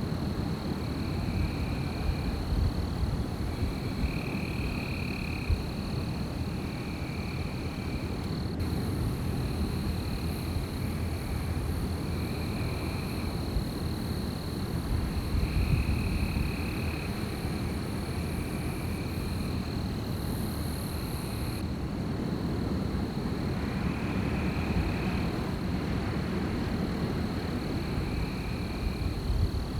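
Strong wind blowing through a night forest with a deep rumble that swells and eases. Under it run a steady high-pitched drone and a short trilling call repeated about every second and a half.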